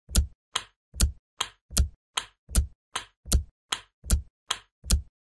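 Typewriter key strikes as a title sound effect, a steady run of about two and a half sharp clacks a second, each with a low thud, one for each letter typed on.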